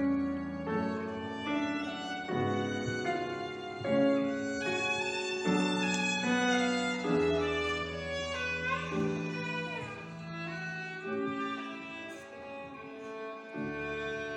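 Violin playing a melody in held notes over grand piano accompaniment.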